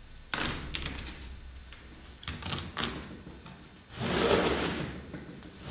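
Hands working a painted canvas off its wooden stretcher frame: a few sharp clicks and knocks, then a louder rasping noise about four seconds in.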